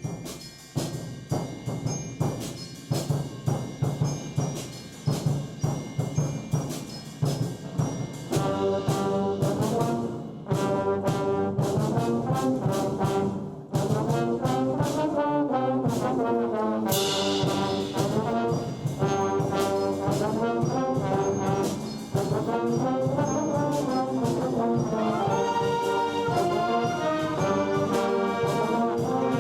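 School concert band playing: short, rhythmic detached notes at first, then full brass chords with trombones and trumpets, and a cymbal crash about 17 seconds in.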